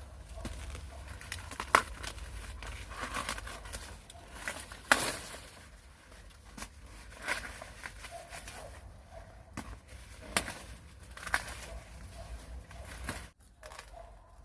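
Irregular rustling and crackling, broken by several sharp snaps or knocks, the loudest about two and five seconds in.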